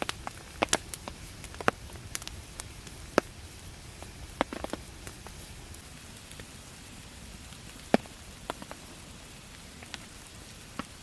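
Steady rain hiss with irregular sharp ticks and pops; a few single cracks stand out, one near the start, one about three seconds in, and the loudest about eight seconds in.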